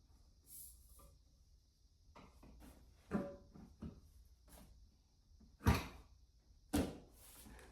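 Bar stool parts being handled and fitted during assembly: a handful of short knocks and clunks with quieter clicks between them, the loudest knock a little past the middle.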